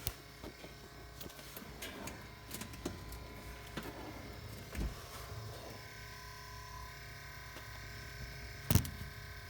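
A small electric pump or fan motor under the rear of a 2015 Volvo S60 T6 whirs steadily after the car has been shut down and locked, a noise the owner can only place as a pump or fan of some sort. Its whine gains higher tones about six seconds in, with light scraping and clicks of handling throughout and one loud knock near the end.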